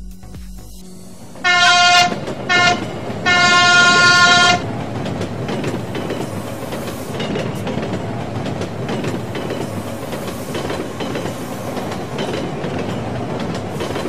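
Train sound effect: three horn blasts, the third the longest, ending about four and a half seconds in, followed by the steady rumble and clatter of a train running over rail joints.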